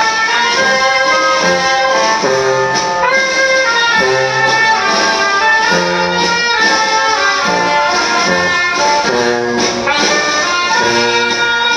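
Brass band music: trumpets and trombones playing a lively dance tune.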